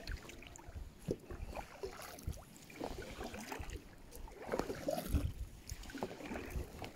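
Kayak paddling: the paddle blades dip and splash in the river water in scattered, irregular strokes.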